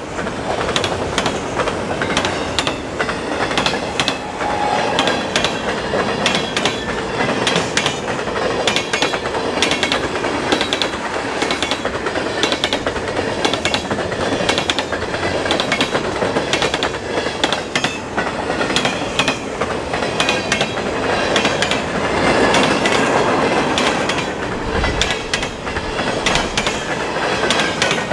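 A train's cars rolling past, wheels clacking rapidly and irregularly over rail joints over a steady rumble.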